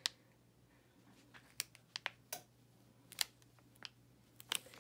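Light, sharp clicks and crackles of a clear plastic heat-transfer-vinyl carrier sheet being folded in half and pressed flat with the fingertips, about ten clicks spaced irregularly.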